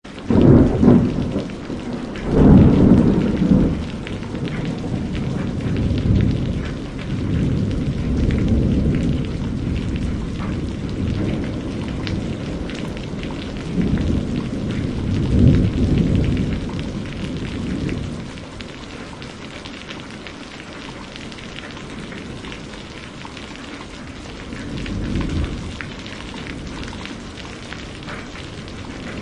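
Heavy rain falling steadily, with several rolls of thunder rumbling low beneath it, the strongest a few seconds in and again about halfway through.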